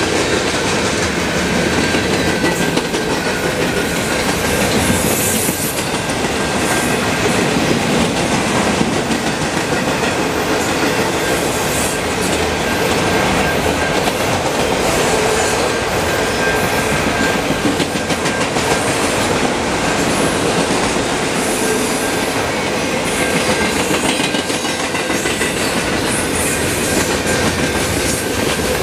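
Freight cars of a mixed manifest train rolling past at speed: the steady noise of steel wheels on the rails, with a faint steady high tone running through it.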